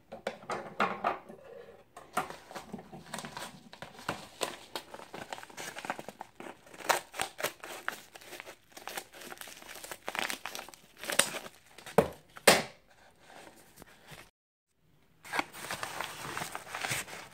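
Shipping packaging being torn and crumpled open by hand: irregular crinkling, rustling and tearing with sharp crackles. The sound cuts out completely for about a second near fourteen seconds in, then resumes.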